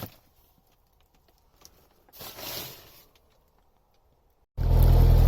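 Mostly near silence with one soft, brief swell of noise. About half a second before the end, a loud, steady, low engine hum cuts in abruptly.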